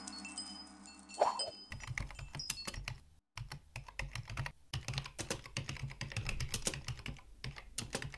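Keyboard typing sound effect: rapid key clicks with a couple of brief pauses, starting about two seconds in. Before it come the fading tail of the intro music and a single thump about a second in.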